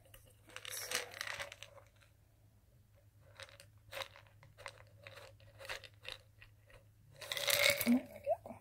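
Vitamin B-complex tablets rattling and clicking in a plastic pill bottle as it is tipped and shaken. Short clicks come in the middle, and a longer, louder rattle comes near the end as tablets spill out.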